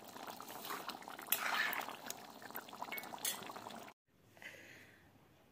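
A pot of duck curry bubbling on the boil, with a few sharp clicks; the sound cuts off suddenly about four seconds in.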